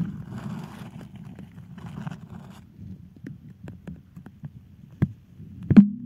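Muffled underwater rumble picked up by a submerged camera, with bursts of hiss early on, scattered small clicks, and two sharp knocks near the end, under a second apart, the second the louder.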